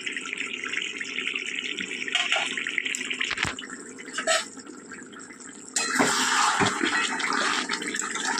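Chicken curry bubbling and sizzling in its pan, cooking in the water the chicken has released. About six seconds in the sound jumps suddenly louder, with a few sharp knocks of utensils against the pan.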